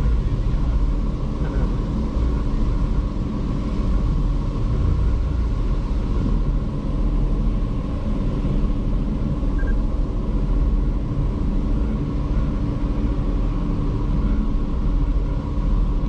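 Cruise boat's engines running steadily under way: a constant low rumble with a faint steady hum above it.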